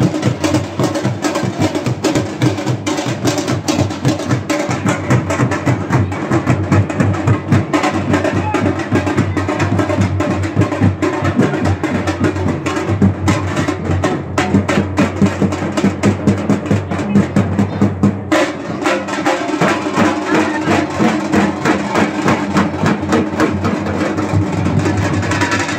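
Procession drums played loudly in a fast, driving rhythm, sharp strikes coming thick and close together without a break; the pattern changes about two-thirds of the way through.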